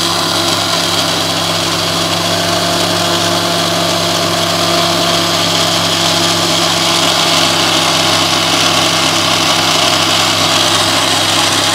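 Electric mixer grinder (mixie) running at one steady speed, blending ripe papaya pieces with their skin, a little water and palm sugar into a thick juice.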